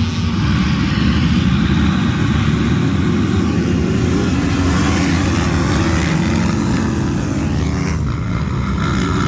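A pack of motocross bikes racing past, their engines making a loud, continuous mass of noise.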